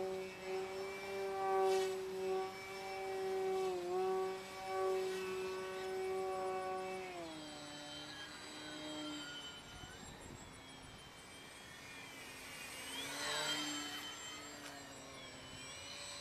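Electric motor and propeller of a Carbon-Z Yak 54 3x radio-controlled plane, a steady whine with a clear pitch. The pitch and level drop about seven seconds in as the throttle comes back. Late on, the pitch swoops up and then down as the plane passes by.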